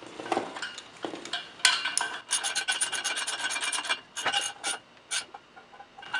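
Ratchet wrench clicking in a fast, even run of about eight clicks a second as a 3/8-inch steel bolt is tightened on a ground-screw anchor assembly, with a few scattered metal clinks before and after.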